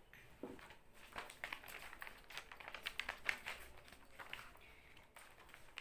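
Cosmetic packaging handled by hand: a faint run of small, irregular taps and crinkles.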